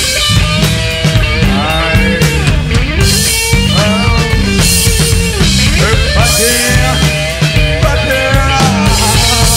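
Garage/psychobilly rock band playing live: drum kit with cymbal crashes, electric guitar with a wavering lead line, and bass.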